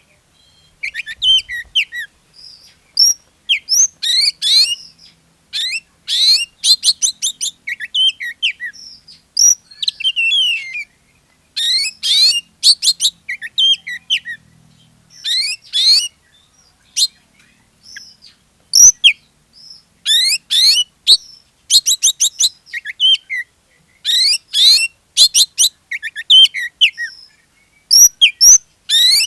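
Oriental magpie-robin (kacer) singing in full, vigorous 'gacor' song: short phrases of rapid, high, rising whistled notes, separated by brief pauses. It is a song of the kind played as a lure (pancingan) to set other magpie-robins singing.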